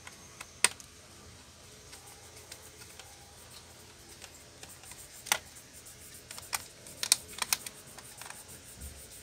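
Scattered sharp plastic clicks and taps of a screwdriver and hands working on an opened laptop's case. There is one loud click about half a second in and a cluster of them in the second half.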